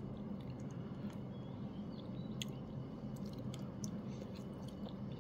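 A man chewing a mouthful of penne pasta in bolognese sauce, with faint, scattered wet mouth clicks over a steady low hum.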